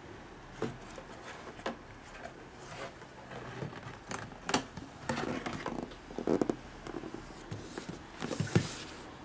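Cardboard boxes being handled on a wooden tabletop: scattered taps and rustles, busier in the second half, with the loudest knocks near the end as a box is set down.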